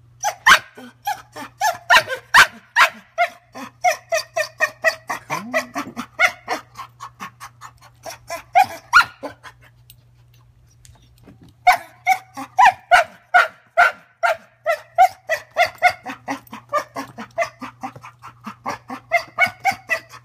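Young dog barking in rapid, insistent runs of short high barks, about four a second, breaking off for about two seconds midway before starting again.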